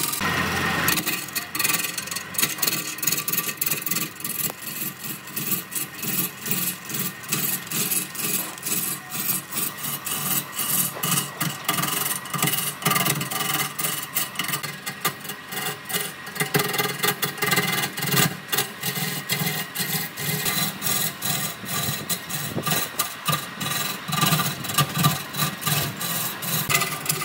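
Wood being turned on a lathe: a turning tool scraping and cutting the spinning wood in quick, uneven strokes.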